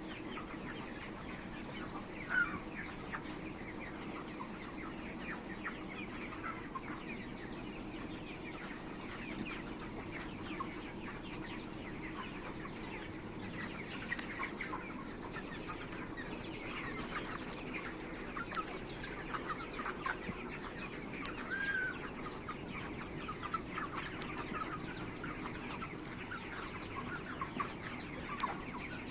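A large flock of 35-day-old chickens clucking and peeping, many short calls overlapping, over a steady low hum.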